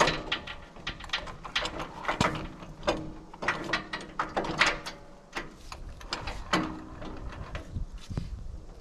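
Metal clicks and clanks of a sawmill's outrigger leveling leg being set up and its trailer-jack crank turned: an uneven run of sharp clicks, several a second, easing off near the end.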